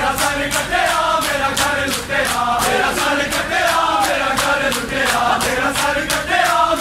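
A large crowd of Shia mourners chanting a noha together, over a fast, even rhythm of hand strikes on the chest (matam).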